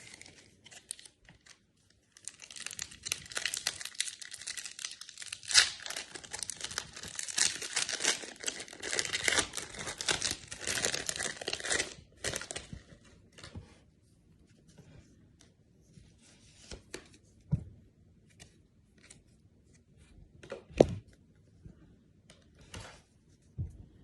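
Foil wrapper of a Magic: The Gathering set booster pack being torn open and crinkled for about ten seconds, then only scattered light clicks and taps.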